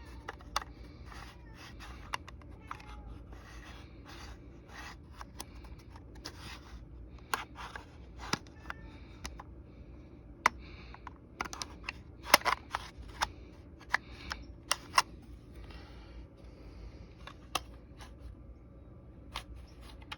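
Irregular plastic clicks, snaps and light scrapes of hands working the AA batteries and battery cover into a Kidde carbon monoxide alarm, with a run of louder snaps a little past the middle.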